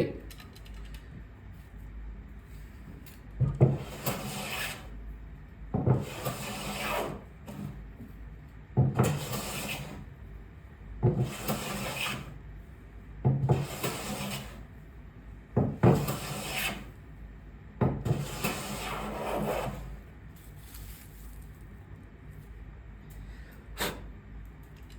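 Restored Stanley Bailey No. 7 jointer plane cutting along a board: about seven swishing strokes two to three seconds apart, each starting sharply. A single short click sounds near the end.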